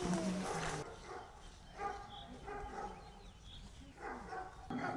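Faint animal calls in short bursts, about two seconds in and again near the end.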